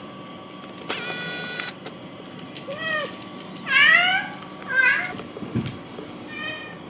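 A pet's short, high-pitched cries, four of them, bending in pitch, the loudest about four seconds in. They follow a brief steady high tone about a second in.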